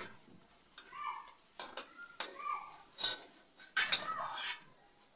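Metal skimmer and tongs clattering and scraping against a steel kadhai and a steel plate while fried bread pakoras are lifted out. It comes as a handful of sharp clinks, the loudest about three and four seconds in.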